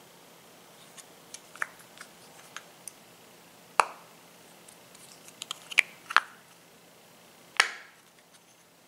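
An NC Star 1x30 red dot sight being handled: a string of small plastic clicks and four sharp snaps, the loudest in the second half, as its lens cover and controls are worked by hand.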